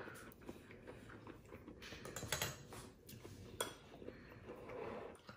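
A few faint clinks and scrapes of a metal spoon in a glass jar of chili oil as it is scooped out.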